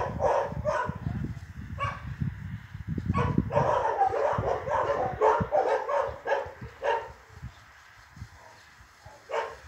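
A dog barking over and over in short yaps, in clusters near the start and again through the middle, then falling mostly quiet. A low rumble runs under the first few seconds.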